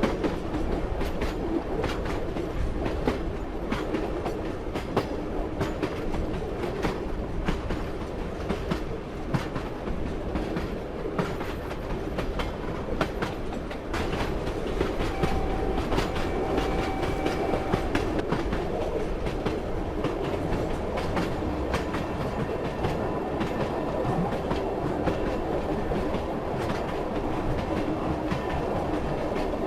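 Train running on the rails: a steady rumble with wheels clicking and clattering over the rail joints. A faint high tone sounds for a few seconds near the middle.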